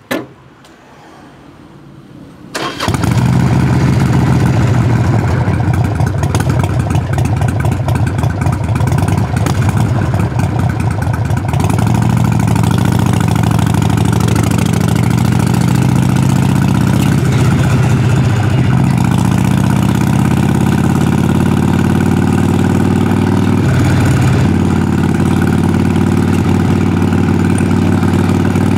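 Harley-Davidson Sportster Forty-Eight's air-cooled V-twin starting: a click, a short spell of cranking, then the engine catches about three seconds in and settles into a steady idle through the exhaust. Its running is a little uneven at first and steadier after about twelve seconds.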